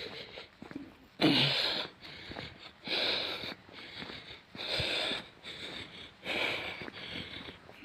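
A person breathing hard and fast close to the microphone, a loud breath about every second and a half, the first the loudest: out of breath from running.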